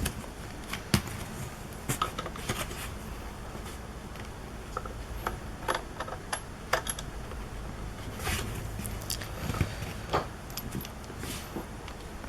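Scattered clicks, taps and light rattles of cables and plastic connectors being handled and plugged in, with a few short scrapes and rustles about two thirds of the way through.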